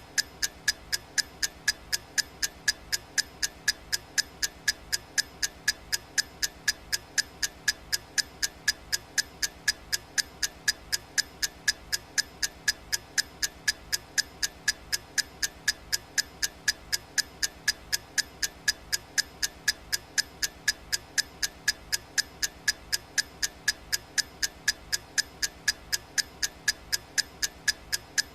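Clock ticking sound effect of a countdown timer: sharp, evenly spaced ticks, about three a second, steady throughout.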